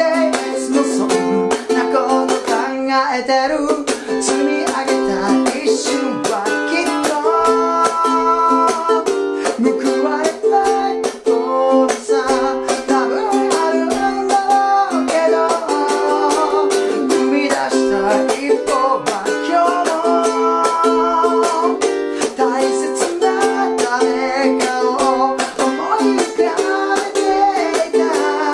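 Ukulele strummed in a steady eight-beat rhythm, with muted chop strokes on the chords, while a man sings along.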